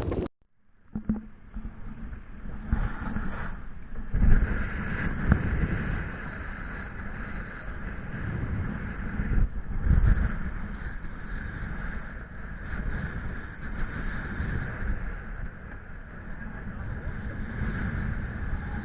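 Small boat's motor running steadily while trolling, with strong wind buffeting the microphone in irregular gusts.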